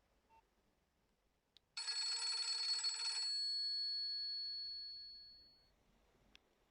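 A Nokia 2630 ringtone in the style of an old telephone bell. It rings hard for about a second and a half, starting about two seconds in, then its tones die away over the next two seconds or so.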